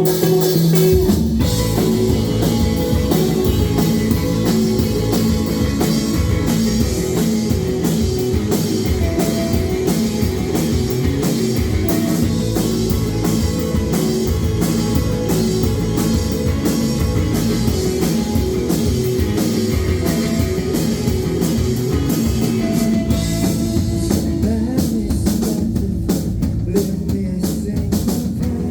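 A live rock band playing: drum kit, electric guitar and bass, with the full band coming in about a second in after a lighter guitar passage.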